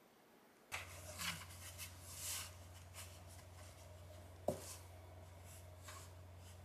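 A kitten scrabbling and rubbing against a cardboard box: scattered scrapes and rustles of cardboard, with one sharp knock about four and a half seconds in.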